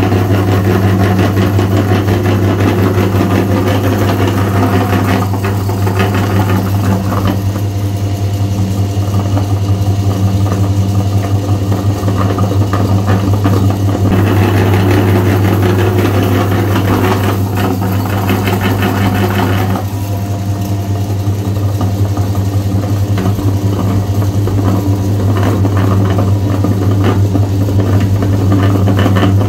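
Electric meat grinder running with a steady low hum while it grinds macarons and pushes them out through the cutting plate in strands. A rougher grinding noise over the hum grows and fades a few times.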